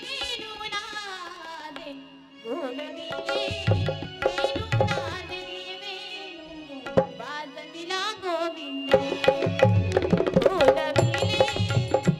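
Indian devotional music: a gliding, ornamented vocal melody with tabla accompaniment. The tabla comes in a few seconds in and plays more strongly near the end.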